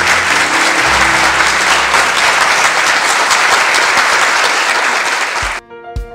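A crowd applauding, with music playing underneath. The applause cuts off suddenly about five and a half seconds in, leaving only music with a steady beat.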